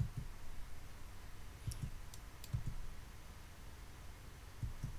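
A handful of faint, scattered clicks from a computer mouse and keyboard, over a low steady hum.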